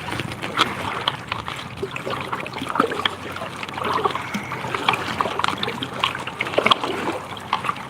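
Kayak paddle strokes in river water: irregular splashing with water trickling and dripping off the paddle blades.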